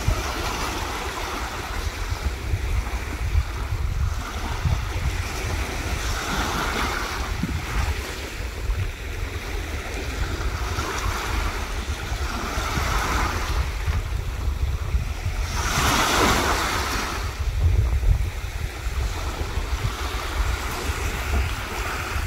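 Sea waves breaking and washing up the beach every few seconds, the biggest wash about sixteen seconds in, over a steady rumble of wind on the microphone.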